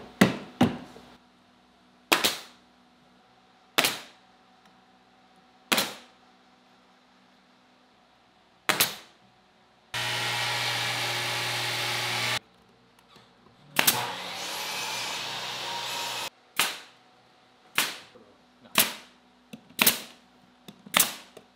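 Pneumatic nail gun firing single nails into a wooden cabinet frame: about a dozen sharp cracks, one every second or two. Midway, a couple of seconds of steady power-tool noise that starts and stops abruptly, then a louder rush of noise that fades out.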